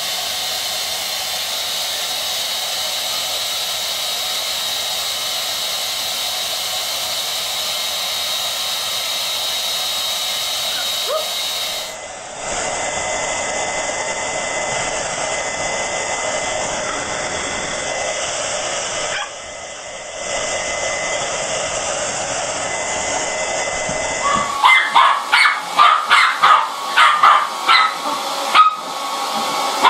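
Hair dryer blowing steadily, with a thin whine over its hiss; about twelve seconds in it cuts to a different dryer with a higher-pitched whine. From about twenty-four seconds on, a dog barks in quick, repeated calls over the running dryer.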